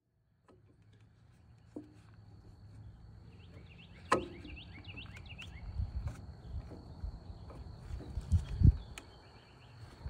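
Outdoor ambience with a steady high insect trill and a run of short bird chirps a few seconds in, over which hands working on a lube-line fitting under the sawmill make a sharp click about four seconds in and low knocks near the end.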